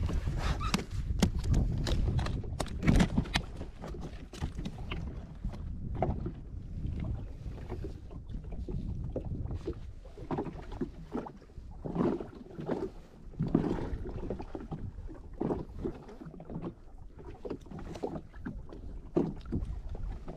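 Water slapping irregularly against the hull of a drifting Sea-Doo Fish Pro, with a few sharp knocks in the first seconds.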